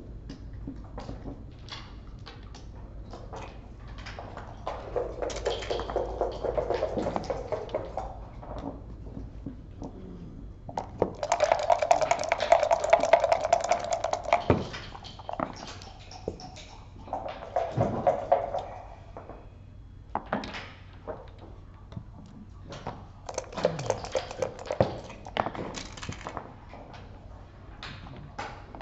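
Backgammon play: scattered sharp clicks and clatters of checkers, dice and the game clock, with several louder stretches of a few seconds each.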